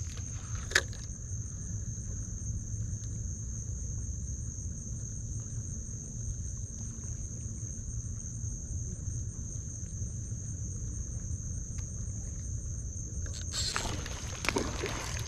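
Insects droning: one steady high-pitched tone that holds without a break and stops shortly before the end, over a low rumble. A single sharp click sounds about a second in.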